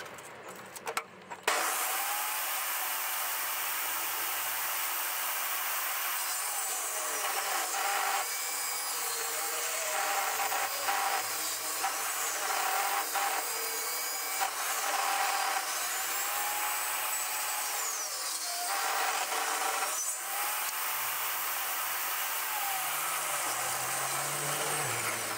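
DeWalt portable table saw starting up about a second and a half in and ripping a length of timber down to a 22 by 40 mm stair nosing. The saw's note dips and recovers several times as the board is fed through the blade.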